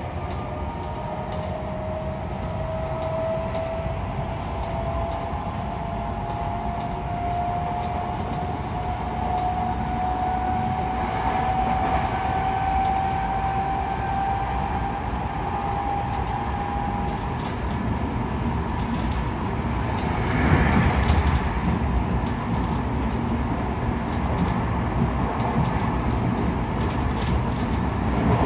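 Tokyo Metro 10000 series train running, heard inside the passenger car: the Mitsubishi IGBT-VVVF inverter and traction motors give a steady whine that rises slowly in pitch as the train gathers speed, then fades out about two-thirds of the way through, over a constant rumble of wheels on rails. About twenty seconds in comes a brief, louder rush of noise.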